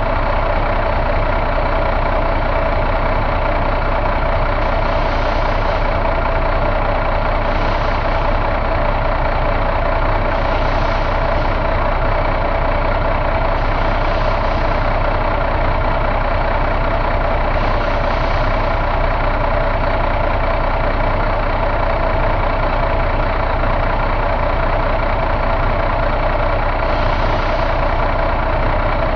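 2009 Cummins ISX heavy-duty truck diesel engine idling steadily, heard close up in the open engine bay.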